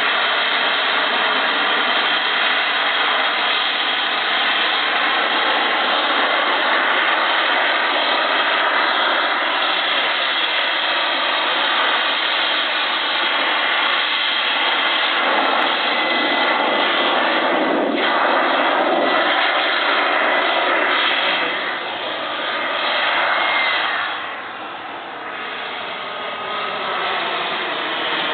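Gas turbine of a radio-controlled model jet, about 35 pounds of thrust, running in flight: a steady rushing noise with a layered whine. The sound drops noticeably about three quarters of the way through, then builds back up.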